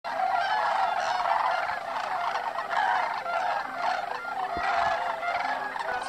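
A large flock of sandhill cranes calling, with many overlapping calls forming a dense, continuous chorus.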